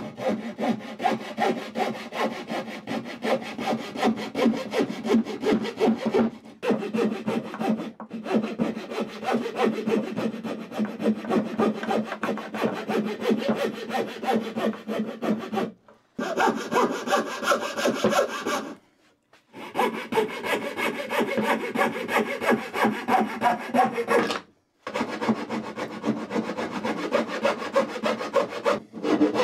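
Coping saw cutting a curve into a wooden board by hand: a steady run of quick back-and-forth strokes, stopping briefly several times.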